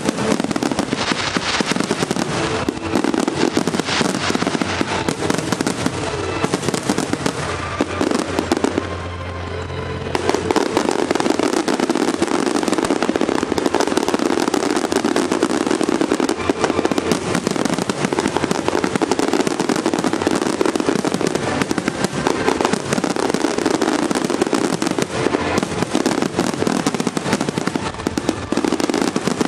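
Dense barrage of aerial fireworks bursting and crackling in rapid succession, with music playing underneath. The barrage thins briefly about nine seconds in, then picks up again more heavily.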